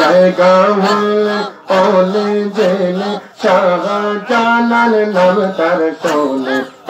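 A man singing a Bengali Islamic devotional chant into a microphone, holding long, slightly wavering notes in phrases of about a second and a half, with short breaks for breath.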